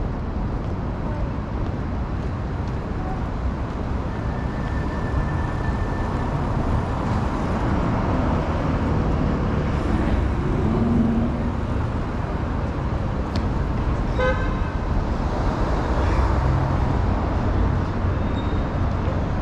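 Road traffic running steadily along a city street beside the pavement. About fourteen seconds in there is a brief, rapid rattling.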